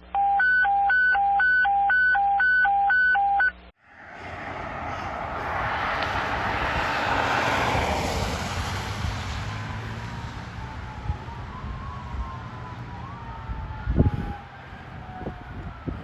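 A two-pitch electronic alert tone alternating high and low about twice a second, cutting off suddenly after about three and a half seconds. Then a fire apparatus passes, its engine and road noise swelling and fading, while a siren wails up and down, with a sharp knock near the end.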